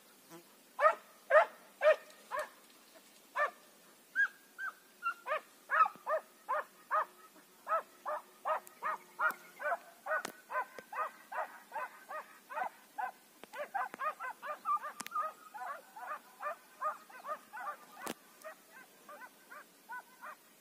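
Hunting hounds baying on a hare's trail: short pitched barks, a few at first, then two or three a second, with calls at different pitches overlapping in the second half as more than one dog gives voice.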